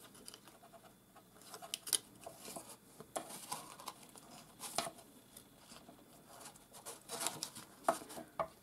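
Faint rustling and light clicking of card stock as hands handle and fit small paper flower pieces into a card-stock box, with a few sharper clicks about two, five and seven to eight seconds in.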